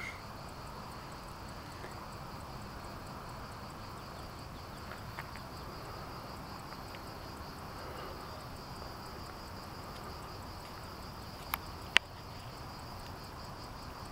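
Crickets chirring steadily in a continuous high, finely pulsing trill over a steady background hiss. Two sharp clicks half a second apart near the end.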